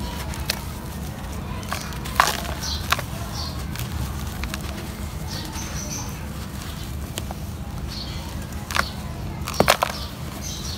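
Hands squeezing and crumbling wet, gritty sand-cement mud in a plastic basin: soft wet squelching with short sharp gritty crunches, the loudest about two seconds in and a quick cluster near the end. A steady low rumble and faint bird chirps run underneath.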